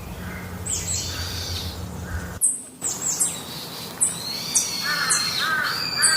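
Chickens and chicks calling: repeated high peeps that fall in pitch, with a few short clucks near the end. A low hum runs under the first couple of seconds and cuts off abruptly.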